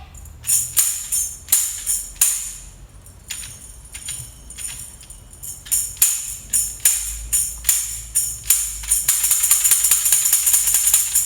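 Tambourine tapped as signals for a children's movement game: separate strikes and short groups of taps with the jingles ringing, then a fast continuous roll for the last two seconds or so, the signal to run in place.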